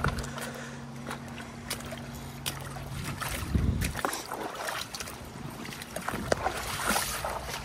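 River water running and splashing, with many scattered small clicks. A steady low hum stops about three seconds in, and a brief low rumble follows about half a second later.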